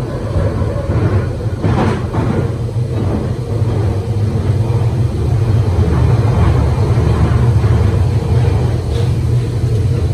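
Waterloo and City line 1992 stock tube train running through the tunnel, heard from inside the carriage: a loud, steady low rumble from the wheels and traction equipment, with a brief rattle about two seconds in.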